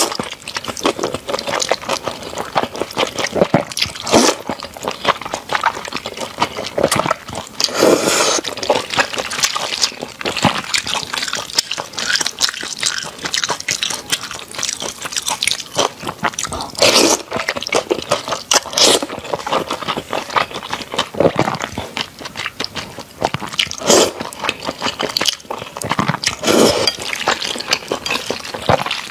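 Close-miked wet eating: slurping wide flat noodles out of broth and chewing them, with many small smacking clicks and louder slurps every few seconds.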